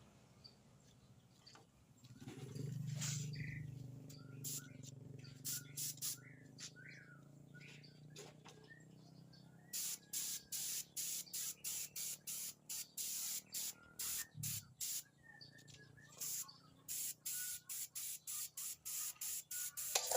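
Sanding sealer being sprayed in short, rapid hissing bursts, a fast regular run of them about two or three a second through the second half, with birds chirping in the background.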